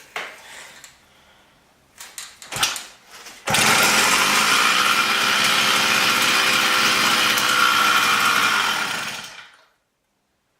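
80cc two-stroke motorised-bicycle kit engine starting in gear. After a few clicks and rattles it catches suddenly about three and a half seconds in, runs steadily for about six seconds, then cuts off. It is a new engine still being broken in, and it starts up pretty well.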